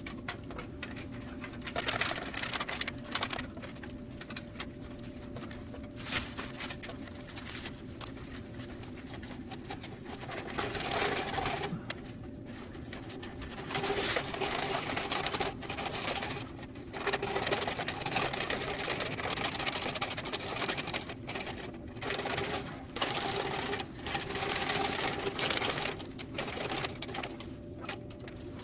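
Steel fish tape rattling and scraping irregularly inside a long dryer vent duct as it is wiggled back and forth to loosen built-up lint, over the steady hum of the running dryer pushing air out of the vent.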